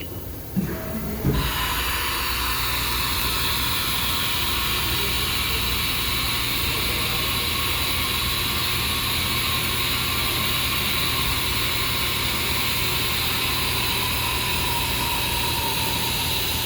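CNC milling machine running, a steady hiss with a faint whine, which starts after a couple of clunks about a second in. The program is being stepped through at 5% rapid so the tool can be positioned, and no cutting is heard.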